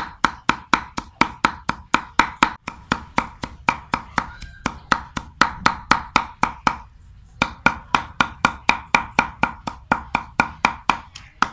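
Steel cleaver chopping red chilies on a thick wooden chopping board, rapid even strokes at about five a second, with a short pause about seven seconds in.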